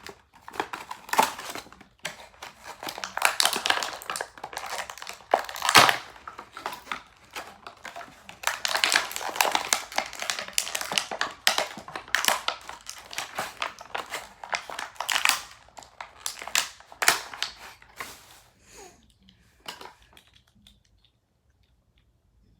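Toy packaging being opened by hand: irregular rustling and handling of the box in bursts, dying away near the end.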